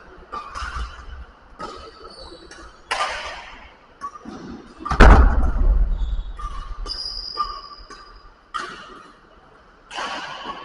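Badminton rally: sharp racket hits on a shuttlecock and players' feet landing on the court floor at irregular intervals, with a brief high shoe squeak around seven seconds in. The loudest sound is a heavy thump with a low rumble about five seconds in.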